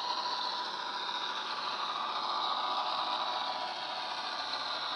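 Model locomotive's DCC sound decoder playing an Irish 121 class diesel engine running steadily through the model's small speaker, with a light rattle from the wheels on the model track.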